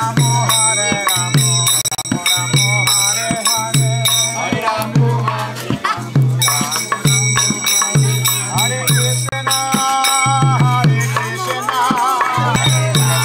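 Kirtan music: voices chanting to a steady drum beat of about two strokes a second, with shaker-like rattling and ringing metallic percussion.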